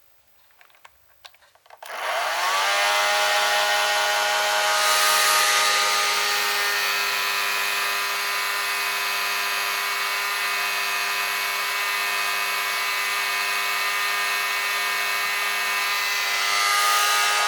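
A few faint clicks, then a hair dryer switched on about two seconds in: its fan motor spins up with a quick rising whine and then runs steadily, blowing air with a hiss.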